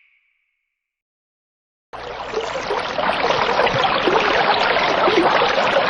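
About two seconds of silence, then from about two seconds in a steady rush of running water.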